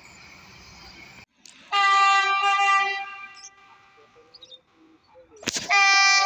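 Shrill train horn sounding two loud blasts: one of about a second and a half, then, just after a sharp knock, a second one starting near the end. Before the first blast, a steady hiss cuts off abruptly about a second in.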